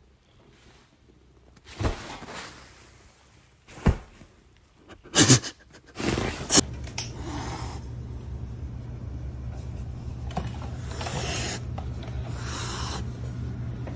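A few sharp knocks, then a kitten hissing again and again, each hiss about a second long, over a steady low hum.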